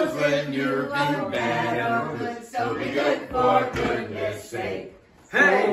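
A small group of men and women singing a Christmas song together without instruments, in held notes, with a short break for breath near the end.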